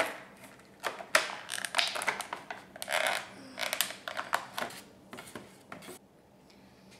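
Stiff clear plastic toy packaging crackling and clicking in irregular bursts as action figures are worked out of it, stopping about a second before the end.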